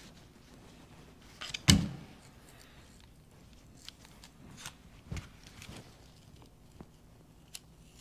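Tools and metal parts being handled on a workbench during an injection pump teardown: one loud knock about a second and a half in, another a little after five seconds, and a few light clicks between them.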